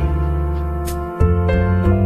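Soft instrumental background music: sustained low notes that change about a second in, with higher notes moving above them.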